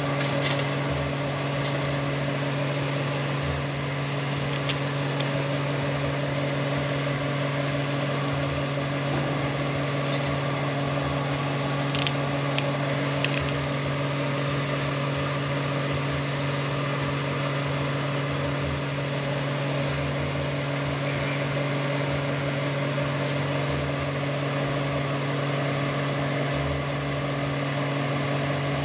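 Steady machine hum with a low, even drone and fainter higher tones, unchanging throughout, with a few faint light clicks in the first half.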